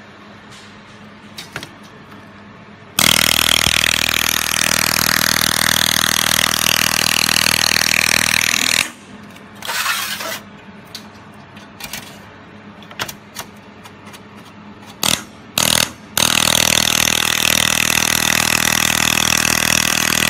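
Handheld fiber laser welder welding 2.5 mm stainless steel: a loud steady hissing buzz that starts about three seconds in and runs for about six seconds, a few short bursts follow, and then it runs steadily again from about sixteen seconds on.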